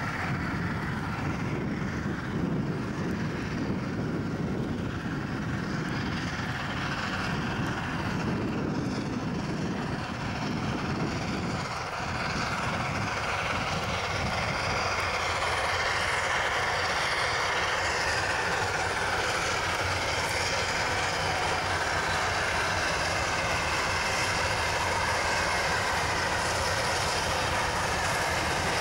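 Narrow-gauge steam train, the Climax geared locomotive with NA-class 8A, working up a grade. It grows louder as it approaches from about twelve seconds in.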